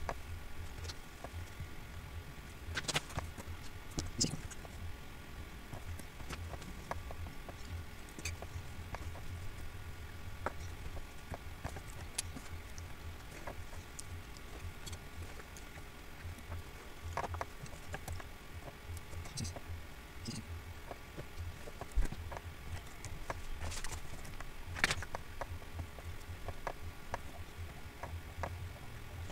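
Scattered computer mouse clicks at an irregular pace, with a few louder ones, over a steady low electrical hum.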